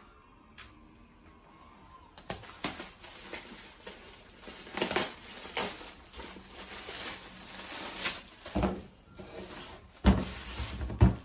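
Thin plastic produce bag crinkling and rustling as it is handled, with a few knocks on the kitchen counter near the end.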